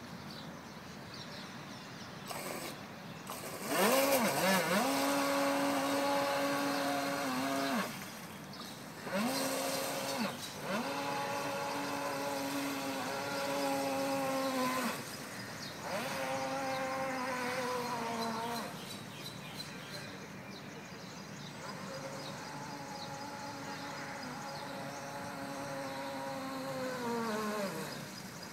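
RC model boat's electric motor whining in five throttle bursts of one to six seconds, the pitch sliding up as each run starts and down as the throttle is released. The last and longest run is fainter.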